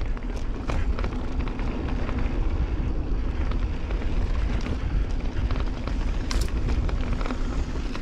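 Santa Cruz Bronson mountain bike rolling down a rocky dirt trail: heavy wind rumble on the microphone over tyres crunching on dirt and loose stones, with the bike rattling and clicking and a sharper knock about six seconds in.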